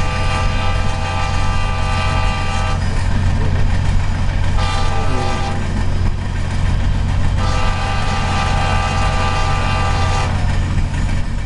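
Train horn sounding a multi-note chord in three blasts (long, short, long) over the steady heavy low rumble of a passing train.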